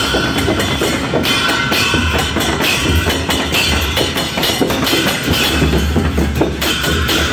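Drum-led percussion music: many drum strokes beating a dense, fast rhythm over a deep low pulse.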